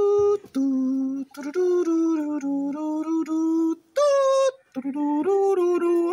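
Intro music: a single melody line of held notes, one at a time, with short breaks between phrases.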